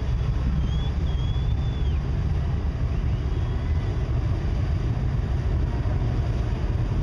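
Steady low rumble of a Coast Guard buoy tender's engines as the ship passes close by, mixed with wind buffeting the microphone. A faint high call is heard about a second in.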